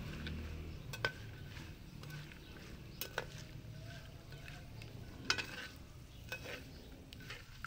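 Metal spatula stirring almonds and coconut flakes frying in ghee in a metal pan, scraping along the bottom with a few sharp clinks against the pan and a faint sizzle underneath.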